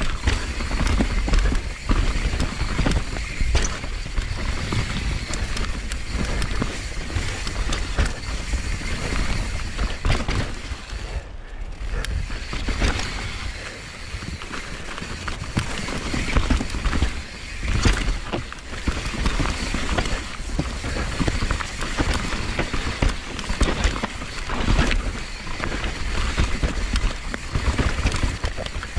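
Downhill mountain bike riding fast over a rough dirt trail: tyres rolling over dirt and rocks, with the bike clattering and rattling over bumps and wind buffeting the microphone. It goes briefly quieter about eleven seconds in.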